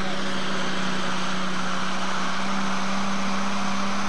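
Modified pulling tractor's engine running flat out under full load while dragging the weight sled: one steady, loud engine note with a rushing hiss over it.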